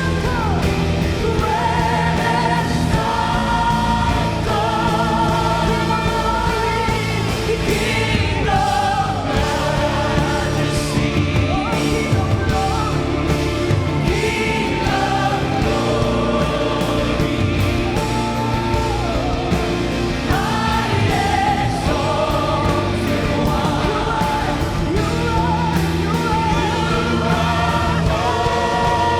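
Christian worship song: a band with drums and bass under group singing on long held notes.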